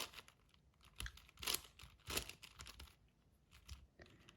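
Plastic clicks and rasps of a 6x6 Rubik's cube's layers being turned by hand, in short irregular turns, loudest about halfway through.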